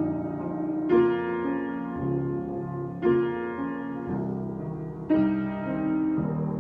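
Improvised piano playing: slow chords, a new one struck about every two seconds (three in all) and left to ring and fade.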